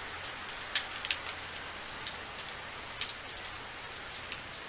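Steady rain during a thunderstorm, with single drops tapping at irregular moments; a few louder taps come close together about a second in.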